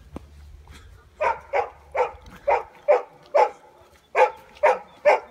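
A dog barking, nine sharp barks at about two a second with a brief pause after the sixth.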